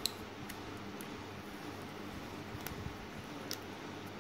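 A few faint clicks and light taps as fingertips work at the battery and its pull tab inside an opened tablet, over steady background hiss; the sharpest click comes right at the start.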